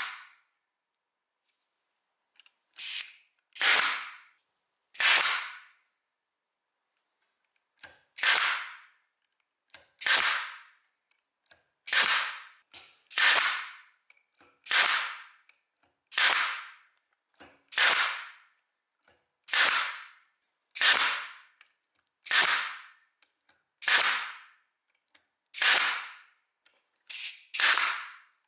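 Parkside PDT 40 G5 pneumatic air stapler firing over and over, one sharp shot with a short fading tail about every one and a half seconds, sometimes two in quick succession.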